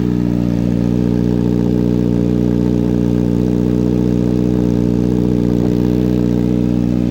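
Kawasaki Ninja ZX-6R 636 inline-four engine idling steadily through a freshly fitted M4 slip-on exhaust, still cold shortly after a cold start; really loud.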